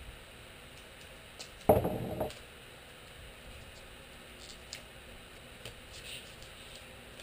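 A short, loud clatter about two seconds in as a roll of painter's tape is handled and set down on the workbench, followed by faint scattered clicks and rustles of gloved hands working a plastic wiring conduit into its channel.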